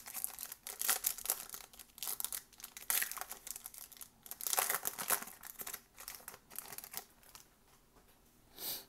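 Foil wrapper of a Panini Prizm trading-card pack crinkling and tearing as it is ripped open by hand, in rapid bursts of crackle that die away about seven seconds in. A short swish follows near the end.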